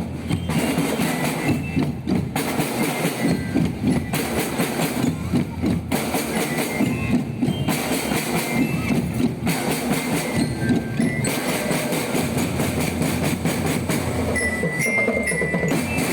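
Loud music with a dense, fast percussion rhythm, kept up throughout.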